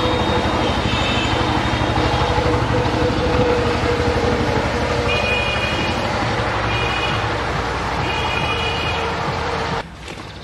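Steady motor-vehicle engine drone with several short, high horn toots over it; the sound cuts off abruptly near the end.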